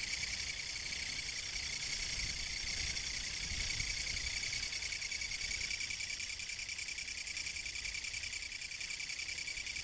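Kutsuwamushi (Japanese katydid, Mecopoda niponensis) calling: a continuous rasping buzz of rapid pulses that runs on without a break.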